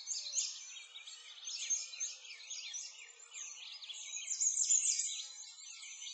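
Several birds chirping together: a dense, continuous stream of quick, high chirps and short whistles.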